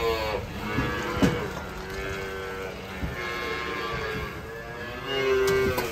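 Holstein calves bawling at milk-feeding time: a string of long, drawn-out calls one after another, some overlapping.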